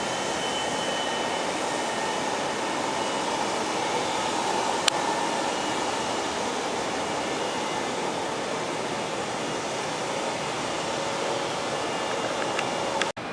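Jet engine noise from a Boeing 737-200's Pratt & Whitney JT8D turbofans: a steady whooshing with faint whining tones. There is a single click about five seconds in, and the sound cuts out briefly near the end.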